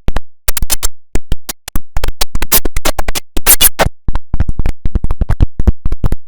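IBM OS/2 Warp 3 shutdown sound chopped by an audio effect into a rapid stutter of short, sharp fragments, several a second with brief gaps, like a record being scratched.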